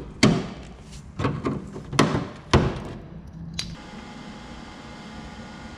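Hand tools knocking and scraping against the body panel of a Ford XE Falcon while old body filler is worked out, about four sharp knocks in the first two and a half seconds. About three and a half seconds in, a steady hiss with a faint hum takes over.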